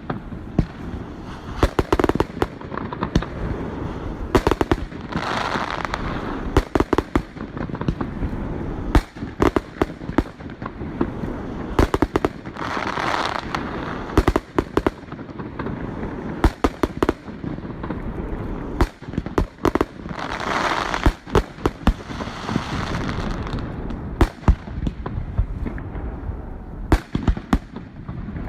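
Fireworks display: a steady run of sharp aerial shell bangs, some in quick clusters, with three spells of dense crackling about a quarter, halfway and three-quarters of the way through.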